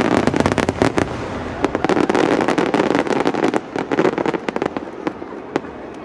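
Fireworks display: a dense crackle of many sharp bangs from aerial shells bursting together, thinning out to scattered single reports over the last couple of seconds.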